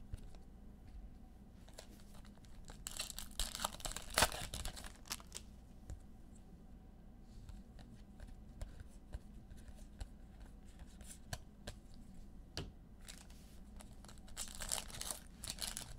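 Foil trading-card pack wrappers being torn open and crinkled, in two bursts: one about three seconds in and one near the end. Scattered light clicks and rustles fall between them.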